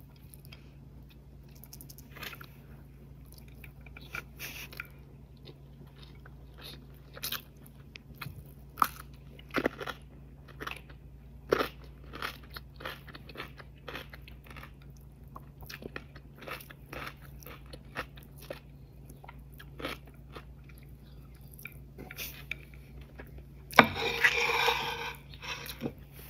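Close-up eating sounds: chewing and biting with many soft, scattered clicks and smacks as rice and camel meat curry are eaten by hand. A louder, longer noise comes about two seconds before the end.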